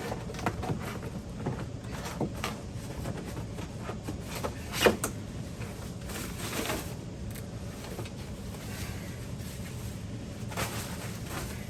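Monitor and stand parts being handled and fitted: scattered light knocks and clicks, the sharpest about five seconds in.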